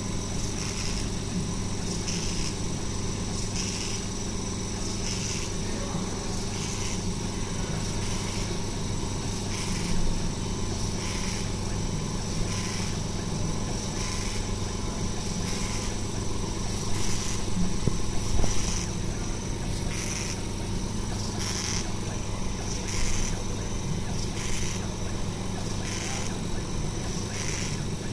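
Home-built 50 W CO2 laser CNC machine running while engraving: a steady machine hum, with a higher-pitched sound that swells and fades about once a second.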